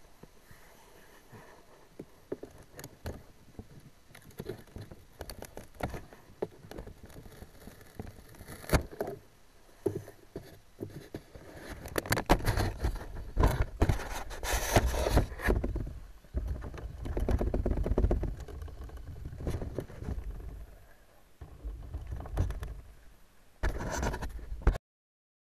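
Handling noise on a small onboard camera in a foam model jet: scattered light clicks and rubbing, then loud irregular scraping, knocks and rumbles from about halfway as a hand grips the model and picks it up, cutting off suddenly near the end.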